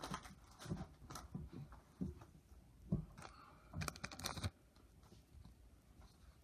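Foil Pokémon booster pack and cards being handled: scattered soft crinkles and taps, with a louder burst of crinkling and tearing about four seconds in, as the next pack is opened.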